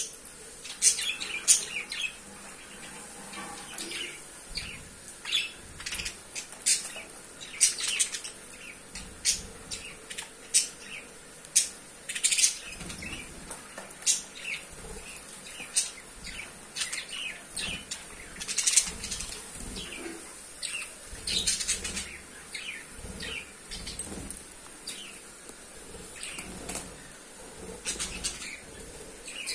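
Flock of budgerigars chirping and chattering: many short, sharp high-pitched calls coming irregularly, several a second.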